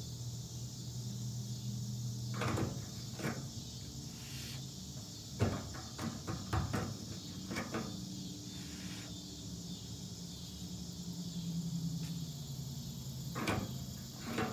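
Small plastic bubble bottle and wand being handled, giving about eight scattered light clicks and knocks, over a steady chorus of crickets or other insects.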